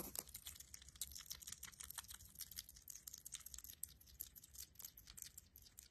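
Hedgehog chewing a mealworm: faint, rapid, irregular crunchy clicks.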